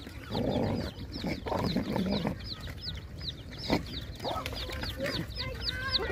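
A chick peeping steadily, short high falling cheeps about three a second, over dogs and puppies chewing and slurping food from a metal bowl. A hen clucks near the end.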